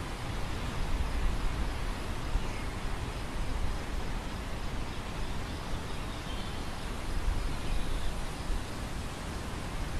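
Wind blowing across a grain field: a steady rustling hiss, with gusts rumbling on the microphone about a second in and again around seven seconds.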